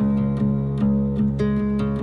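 Background music: acoustic guitar played in a steady rhythm over sustained low notes.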